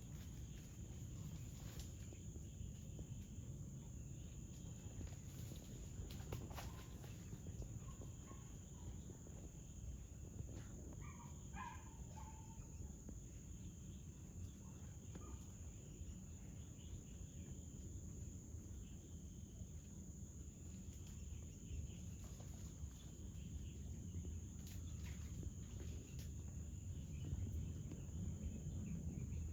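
Faint outdoor ambience: a steady high-pitched insect drone over a low rumble, with a few short faint calls about a third of the way in.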